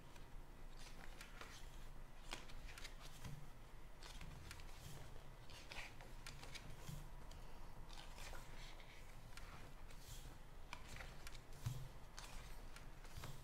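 Glossy photobook pages being turned and smoothed flat by hand: faint, intermittent paper rustles and slides, with a few soft knocks from the book being handled.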